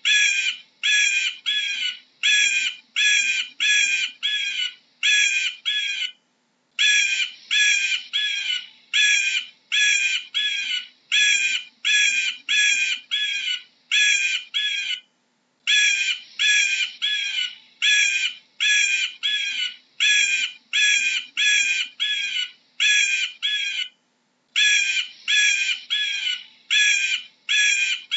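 Bald eagle calling: a long run of short, high-pitched notes, about two or three a second, broken by a brief pause roughly every nine seconds.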